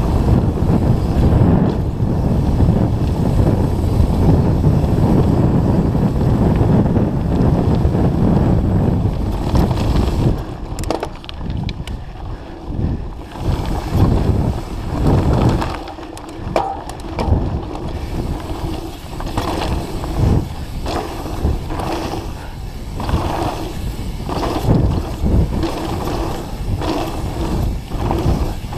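Mountain bike ridden fast down a dirt singletrack. Wind rushes over the microphone for about the first ten seconds. Then it eases, leaving tyres on dirt and the bike's chain and frame rattling and clicking over bumps.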